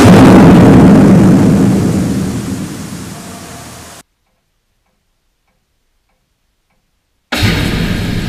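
Tunnel blast suppression system firing: a sudden loud burst as its nozzle manifold sprays out water mist, with a rumbling hiss that dies away over about four seconds before cutting off. A second identical burst comes about seven seconds in.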